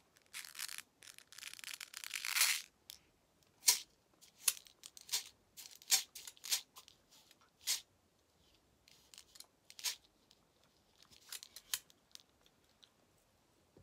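Plastic pin art toy being handled and tilted: its pins slide and rattle in a rush over the first couple of seconds, then give scattered sharp clicks and short rattles.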